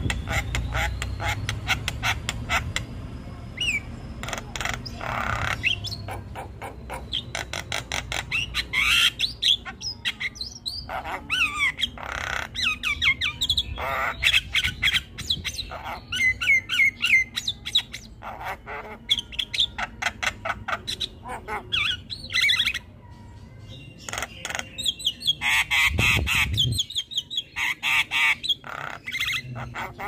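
Javan myna (jalak kebo) chattering and squawking without pause: a rapid, unbroken stream of harsh calls, clicks and short whistled notes.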